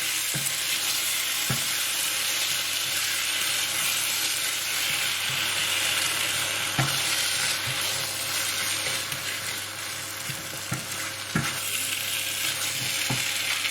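Chicken curry with base gravy and tomato puree sizzling in a hot pan as it is stirred, with a steady frying hiss and a few sharp knocks of the utensil against the pan.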